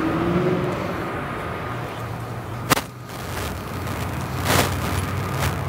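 Car engine idling with a steady low hum, broken by three sharp clicks or knocks: one near the middle and two more near the end.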